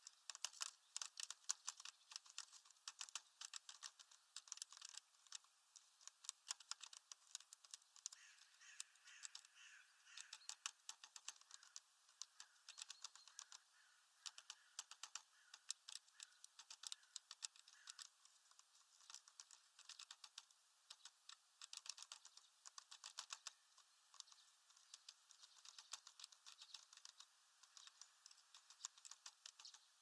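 Faint, irregular tapping and clicking on a feeder ledge, several small sharp taps a second, keeping on without a break.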